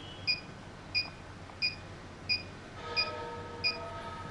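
HIFU machine beeping once for each shot the handle fires in line-carving mode: short beeps repeating evenly about every two-thirds of a second, in step with the 0.6-second firing interval.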